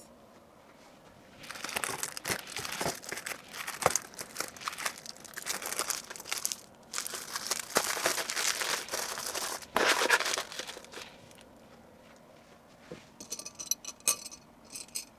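Plastic packaging crinkling and rustling as items are handled and packed, in two long stretches, followed by a few light clicks and taps near the end.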